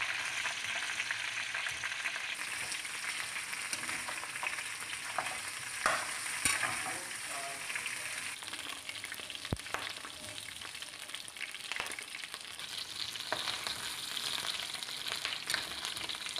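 Chicken feet frying in a metal wok, sizzling steadily as they brown, with a few clicks and scrapes of a spatula turning them.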